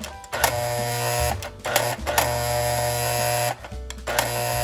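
Lionel 145 Gateman's electric mechanism buzzing loudly as it is switched on and off several times, each stretch of hum lasting about a second and starting with a click, as the gateman figure is sent out of his shack.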